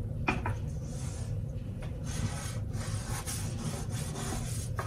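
Paintbrush scrubbing Mod Podge onto the wooden inside of a small vanity cavity: a run of irregular scratchy brush strokes, one every half second or so.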